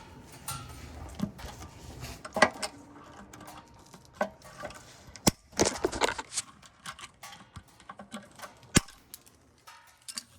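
Irregular clicks, knocks and light clattering, loudest in a cluster a little past the middle, over a low rumble that dies away in the first two seconds.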